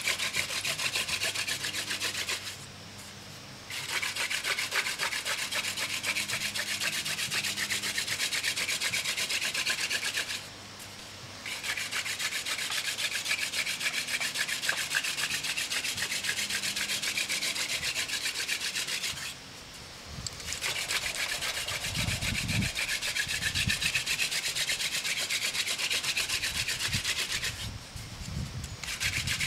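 Hand drill friction fire: a wooden spindle spun fast between the palms, grinding in the notch of a wooden fireboard with a steady rasping rub. The rub stops briefly four times as the hands go back to the top of the spindle, and a few low thumps come in the later part.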